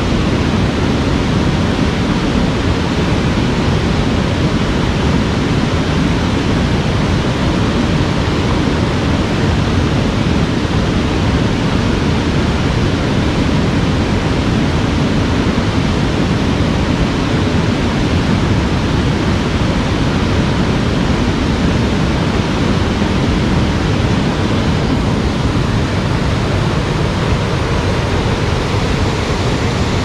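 River rapids: white water rushing steadily over a low rock ledge and churning between rocks, a deep, even rush.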